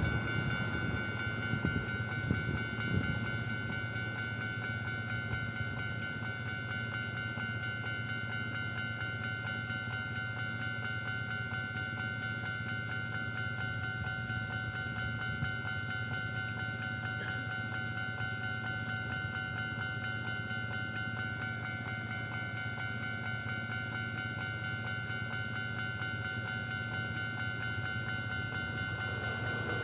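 Japanese railway level-crossing warning bell ringing continuously while the crossing is closed, a steady set of fixed tones. In the first few seconds the noise of a train that has just gone through fades away.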